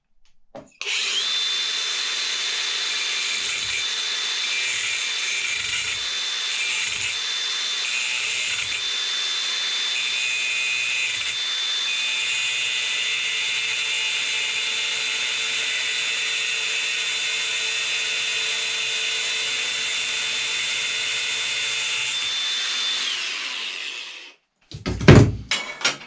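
Cordless angle grinder starting up and running with a steady high whine while its disc cuts off a small part held in a vise. It bites in several short touches at first, then makes one long continuous cut, and is switched off and spins down near the end.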